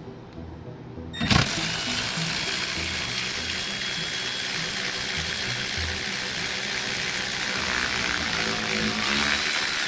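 Milwaukee M12 cordless 3/8-inch ratchet motor running steadily with a high whine, driving a dishwasher's threaded leveling leg. It starts suddenly about a second in and stops near the end, over quiet background music.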